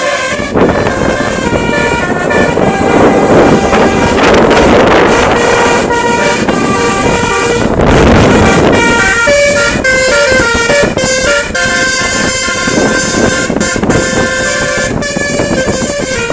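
A bus's basuri telolet melody horn playing a tune of several pitched notes that change in steps, with a loud rushing noise swelling around four and again around eight seconds in.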